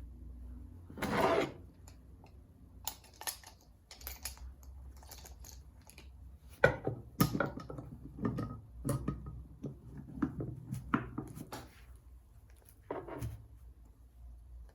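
Workshop handling sounds: irregular knocks and clicks of tools and hard parts being set down and worked, with a longer scrape about a second in and another near the end.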